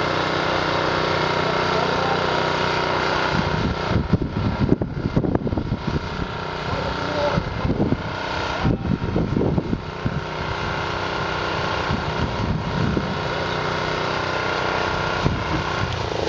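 A motor running steadily at a constant speed, with irregular low rumbling bumps over it for several seconds in the middle.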